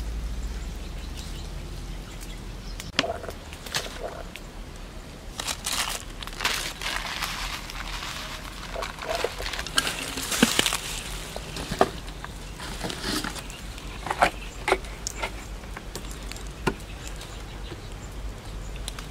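Clicks, crinkles and rustles of plastic packets and a plastic tub being handled as chili flakes and sauces are shaken and poured onto raw pork intestines, with a louder rustling stretch near the middle.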